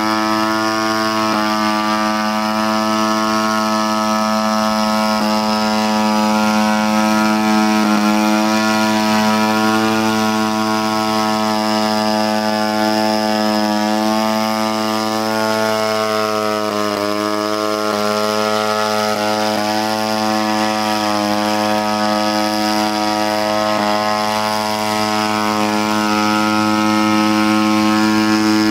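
The engine and propeller of a homemade crop-spraying aircraft running at a steady high speed as it hovers, with a few brief dips in pitch.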